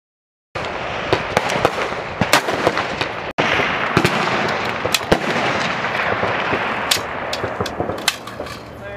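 Several 5.56 mm M4 carbines firing irregular single shots on a rifle range, sharp cracks overlapping with their echoes. The firing starts abruptly about half a second in and drops out for an instant a little past three seconds.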